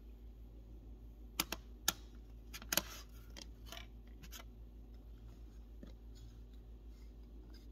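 Light clicks and taps of makeup compacts and brushes being handled, a handful in the first half, then only a low steady hum.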